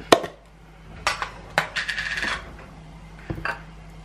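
Metal spoon clinking and scraping in a plastic tub of thick Greek yogurt. There is a sharp click right at the start, a run of quick scrapes about two seconds in, and a dull knock near the end.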